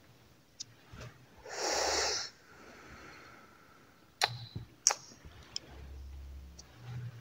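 A cigarette smoker's breath: one short, loud, breathy rush of air that trails off softly, followed a couple of seconds later by a few sharp clicks.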